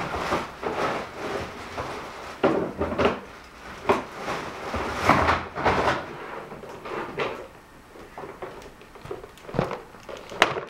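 Handling noise: irregular knocks, clicks and rustling as things are moved about and rummaged through.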